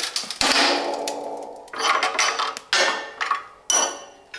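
Knocks and clatter of wooden buck boards, bolts and a steel die on a shop press. A sharp knock about half a second in rings on briefly, then several more separate knocks follow.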